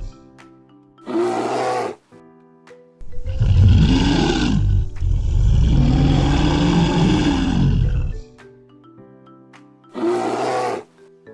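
A large animal roaring four times: two short roars and two long, deep ones in the middle. Light mallet-percussion background music plays in the gaps.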